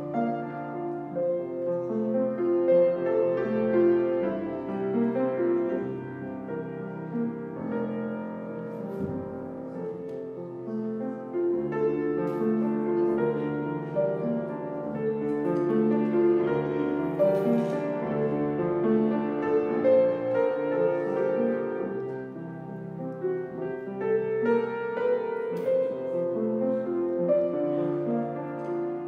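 Piano music playing continuously as offertory music, with overlapping held notes and chords.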